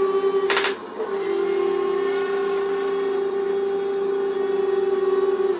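Simulated engine sound from a Tongde 1/16 Bradley RC tank's built-in sound unit, played through its small speaker as a steady droning hum. A brief sharp burst comes about half a second in, after which the hum runs smoother.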